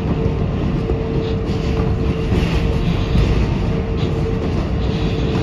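R188 subway train running along the track, heard from inside the cab: a steady low rumble of wheels on rail, with a steady mid-pitched hum through it that breaks off briefly now and then.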